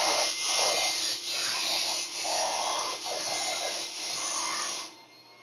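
Titan Capspray 95 HVLP turbine sprayer spraying wood stain: a steady hiss of air and spray that dips briefly about once a second and cuts off near the end.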